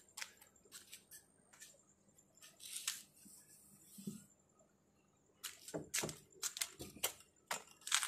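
Scattered light clicks and taps of hands handling a car door's window trim and glass, with a brief rustle about two and a half seconds in and a quicker run of sharper clicks from about five and a half seconds on.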